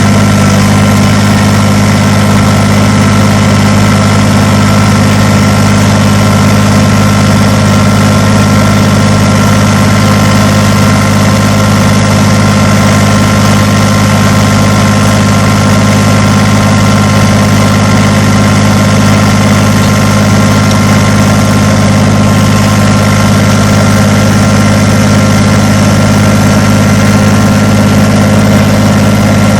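Kubota BX compact tractor's diesel engine running at a steady speed.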